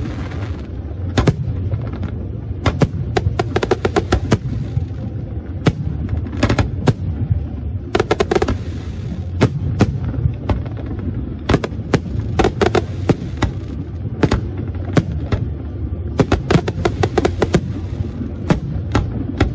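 Aerial firework shells bursting over and over: sharp bangs, often several a second and in quick clusters, over a steady low rumble.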